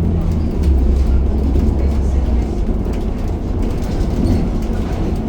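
Steady low rumble of a city bus in motion, heard from inside the passenger cabin.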